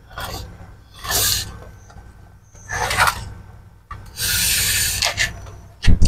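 Floor tray of a wooden canary cage being slid into the cage base: a series of scraping rubs, the longest about four seconds in, then a sharp knock near the end.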